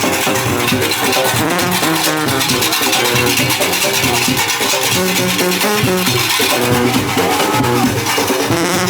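Background music with plucked guitar, steady throughout.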